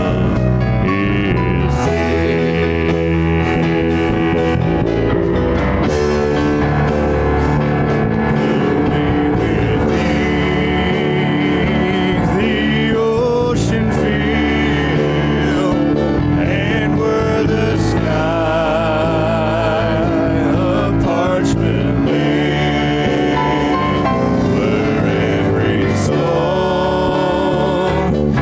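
Live church praise band playing a gospel worship song, with acoustic guitar, congas, drum kit and keyboard under sung vocal lines with vibrato.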